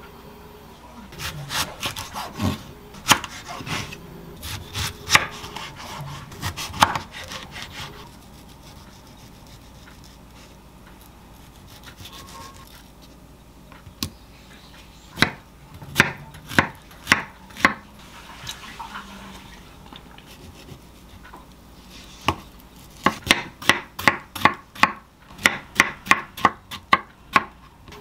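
Kitchen knife cutting a honey melon on a wooden cutting board, its blade knocking on the board. The strokes come scattered with rubbing at first, a few slower cuts in the middle, then a quick regular run of about two to three chops a second near the end.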